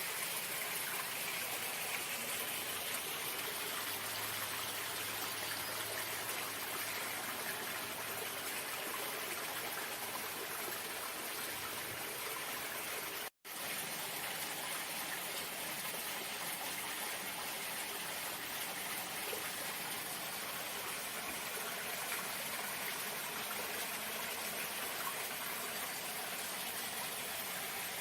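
Running water rushing steadily, like a stream or small waterfall. The sound cuts out completely for an instant about halfway through, then carries on unchanged.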